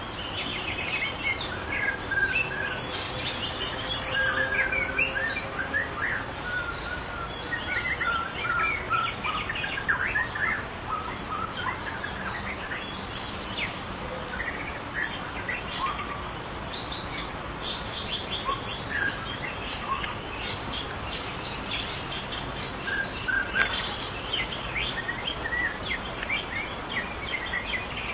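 White-rumped shama singing: a long run of varied, rapid whistled and chirping phrases with short pauses between them, over a steady background hiss.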